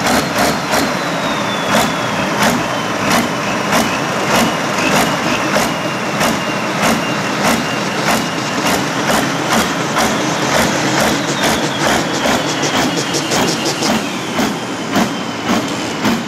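IHC pulling tractor's diesel engine running while the tractor stands still, with an even, lumpy beat of about two or three pulses a second and a faint high whine that slowly falls in pitch.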